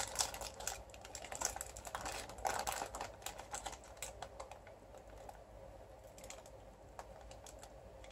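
Paper wrapper of a convenience-store burrito crinkling and clicking as it is opened and held, busy and irregular for about the first three seconds and then sparser while the burrito is bitten and chewed.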